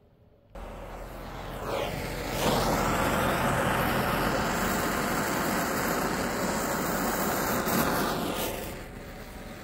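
Handheld propane torch flame burning with a steady hiss, lit about half a second in, turned up about two seconds in and turned down near the end, as it burns carbon out of a chainsaw spark arrestor screen.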